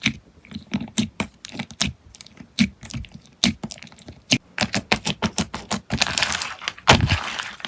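Slime being pressed and squished by hand, making quick irregular clicking pops that run together into a denser crackle near the end.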